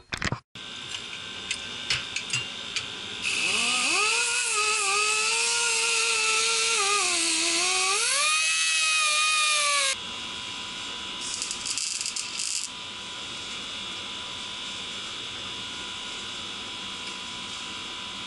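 Wire-feed welder arc crackling and buzzing for about six seconds while welding a broken steel caulk gun. The buzz wavers and rises in pitch before the arc cuts off sharply. After that there is a steady electrical hum, with one short second burst of welding.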